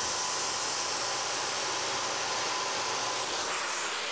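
Circular saw running and cutting through a door's wooden trim casing, a steady motor whine with a hissing cut. The sound changes about three and a half seconds in as the cut finishes.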